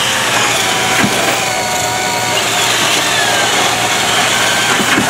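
Two drills, a Hilti SF10W cordless drill driver and a corded half-inch drill, running under load with 1-inch spade bits boring through stacked 3/4-inch plywood form sheets. Their motor whines sag and recover in pitch as the bits bite into the wood.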